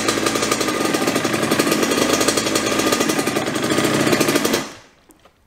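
Dirt bike engine running steadily with a rapid, even firing pulse, then stopping near the end and dying away over about half a second.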